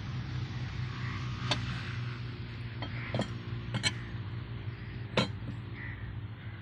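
Sharp metallic clinks of a long-handled track spanner on the fishplate bolts of a rail joint, four knocks at irregular spacing, over a steady low hum.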